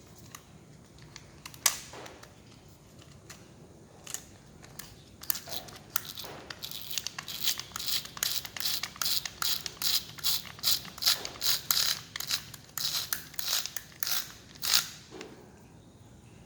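Small hard parts of a cordless drill/driver being handled during disassembly: a run of sharp clicks and scrapes, about two a second for several seconds, after a few scattered clicks.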